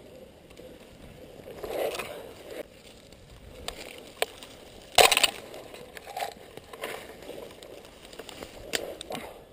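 Dry weeds and stalks rustling and crunching as someone pushes through dense brush on foot, in uneven swells, with scattered sharp snaps; the loudest, a single sharp crack, comes about five seconds in.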